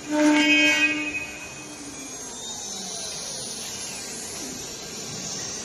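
CNC router spindle whining at a steady pitch, loud for about the first second, then sliding down in pitch as it winds down, with a steady high hiss after.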